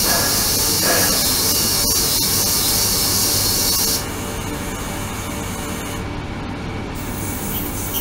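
Ultrasonic cleaning tank running: a steady hissing buzz from the agitated water over a low hum. About halfway through, the high hiss drops away and the sound turns quieter, with the hiss coming back faintly near the end.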